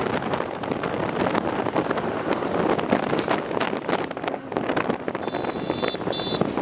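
Wind buffeting the microphone of a rider on a moving motorbike or scooter, over a rush of road and engine noise. Two short high-pitched tones sound about five and six seconds in.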